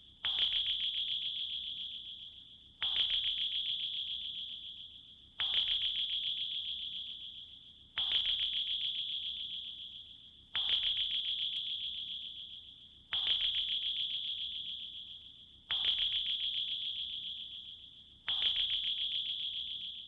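Sonar ping sound effect: a single high ping struck sharply about every two and a half seconds, eight times, each one fading away slowly before the next.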